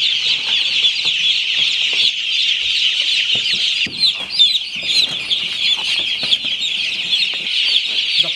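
A large flock of broiler chickens peeping continuously, many short high chirps overlapping into a steady chorus.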